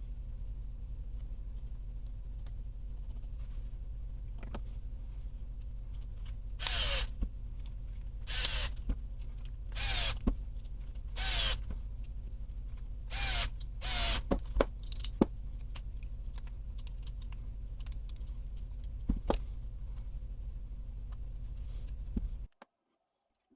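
A small electric power driver run in about seven short spurts, its motor pitch dropping as each spurt ends, over a steady low hum. A few sharp clicks of parts and tools being handled. All sound cuts off abruptly near the end.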